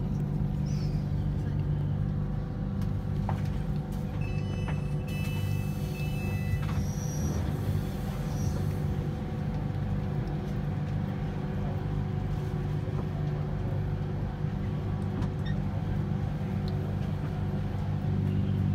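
Steady hum of a Bangkok Airport Rail Link train heard from inside the carriage, a constant low drone at a station platform. About five seconds in, a short run of high electronic beeps sounds.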